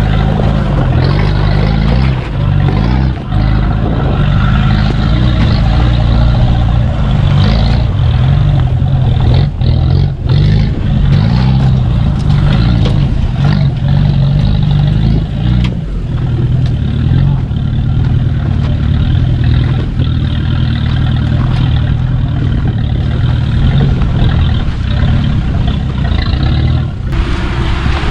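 Off-road 4x4 engine running steadily at low speed over rough, rocky ground, with scattered knocks and rattles from the vehicle as it works over the terrain.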